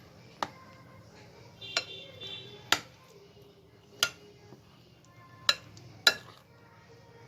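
A kitchen utensil clinking sharply against a bowl about six times, one strike briefly ringing, as boiled cauliflower florets are put into the batter.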